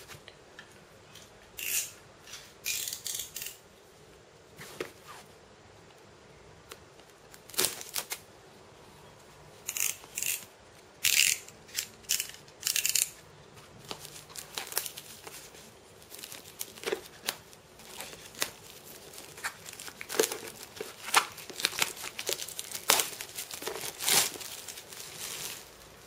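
Packaging on a smartphone box being cut, torn and peeled off, heard as irregular bursts of tearing and crinkling with small handling knocks and clicks in between.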